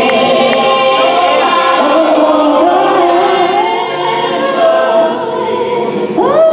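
Gospel choir singing, holding long sustained chords; just before the end a female soloist's voice sweeps upward over the choir.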